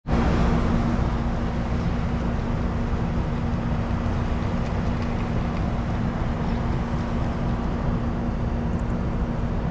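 Steady, loud background rumble with a constant low-pitched hum.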